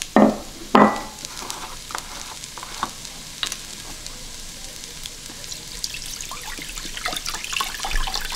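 Pearl couscous sizzling faintly as it toasts in an electric pressure cooker on sauté, with two loud knocks near the start. Near the end, chicken broth starts pouring from a carton into a glass measuring cup, splashing and glugging.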